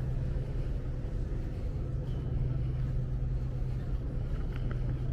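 Steady low hum of harbour machinery, with a few faint clicks about four and a half seconds in.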